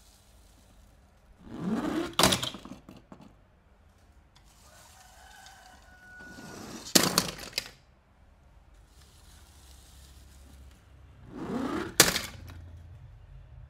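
Toy packaging being opened by hand: three bouts of scraping and crinkling, each ending in a sharp snap.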